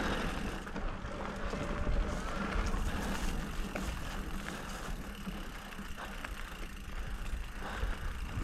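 Electric mountain bike rolling down a rough dirt trail: tyres on the ground and the bike rattling over bumps, with a low uneven rumble throughout and scattered small clicks.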